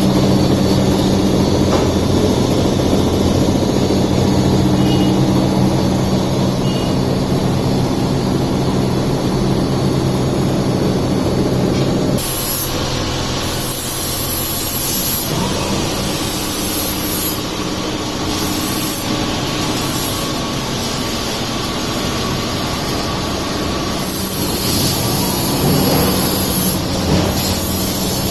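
Amada Quattro 1 kW CO2 laser cutting machine running with a steady machine hum. About twelve seconds in, a high hiss starts coming and going in repeated bursts.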